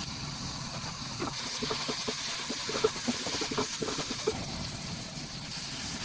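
Sliced onions, chillies and curry leaves for seeni sambol frying in a metal pan with a steady sizzle, while a spatula stirs them, scraping and tapping irregularly against the pan.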